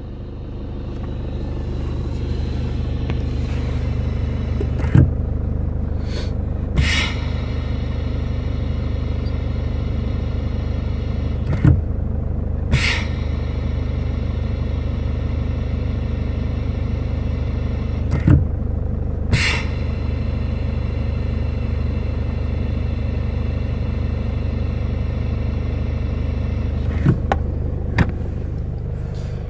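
Toyota Hilux engine idling, heard from inside the cabin, while the brake pedal is worked three times: each time a soft knock is followed about a second later by a short hiss of air. The hiss is air leaking through the failed vacuum brake booster, the same fault that leaves the pedal hard and heavy.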